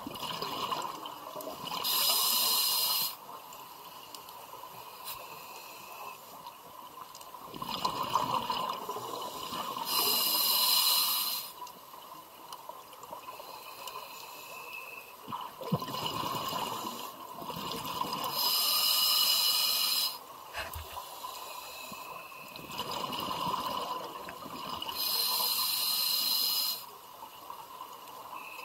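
Scuba diver breathing underwater through a regulator, in slow cycles about every eight seconds: a softer inhale through the regulator, then a loud hissing rush of exhaled bubbles lasting a second or two, four times in all.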